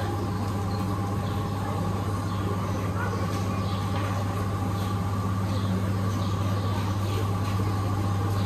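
Steady low electrical machinery hum with two fainter steady tones above it, unchanging throughout, over a faint indistinct background of store activity.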